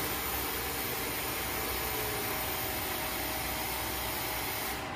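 Rotary airlock valve driven by its electric gear motor, running steadily at reduced speed: an even mechanical whir with hiss and a few faint steady hums.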